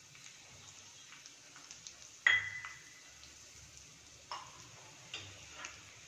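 Crushed garlic cloves frying gently in a little oil in a nonstick pan: faint sizzling with a few sparse pops and crackles. The sharpest is a ringing click a little over two seconds in.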